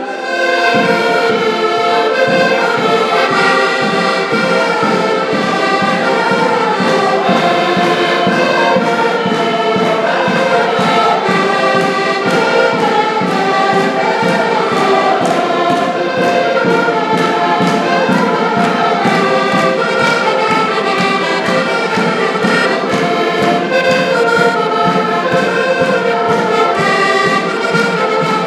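Several diatonic button accordions (Portuguese concertinas) playing a lively folk dance tune together, with a steady pulsing beat.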